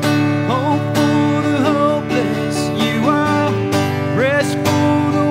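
Acoustic guitar strummed steadily as accompaniment to a slow worship song, with a man's voice singing sliding, held notes over it.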